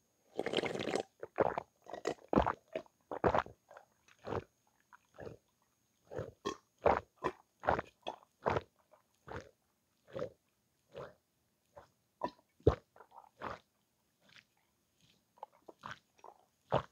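Close-miked gulping as a person chugs cold milk straight from a one-litre jug: a long run of separate swallowing gulps, about one or two a second, with a longer first gulp.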